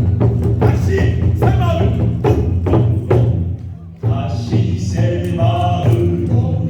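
Korean drum (buk) performance with a singing voice: drums struck in a dense, steady rhythm under a sung melodic line. The music dips briefly about three and a half seconds in, then resumes.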